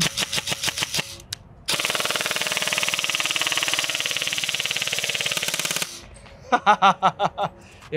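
G&G SRF 16 Enhanced Combat Machine airsoft electric gun firing full auto: a short string of rapid shots at the start, then after a brief pause one long burst of about four seconds that stops suddenly.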